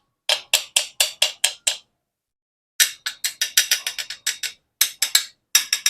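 Speedone Sniper V3 rear hub's ratchet clicking slowly, separate sharp clicks about four to five a second, with a pause of about a second in the middle.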